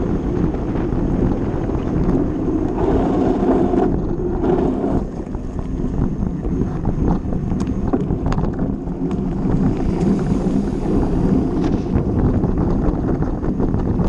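Wind buffeting the action camera's microphone while a fat bike rolls fast down a dirt trail, its tyres rumbling over the ground, with a few short sharp rattles over bumps.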